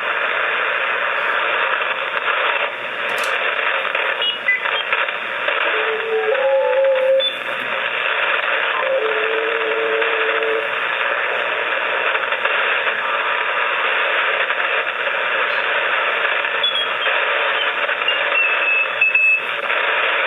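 Shortwave receiver audio from a FlexRadio 6600M tuned to the 80-meter band: a steady hiss of band noise with a few brief whistling carrier tones about six and nine seconds in. The gain is set higher than needed.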